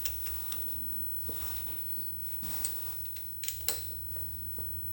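A few light, separate clicks and taps of hand tools and small metal parts being handled during reassembly, over a low steady hum.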